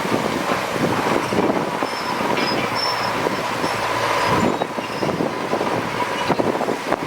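Heavy earthmoving machinery working, a bulldozer among dump trucks: an engine running under many rattles and clanks, with a steady whine that stops about two-thirds of the way through as the sound eases a little.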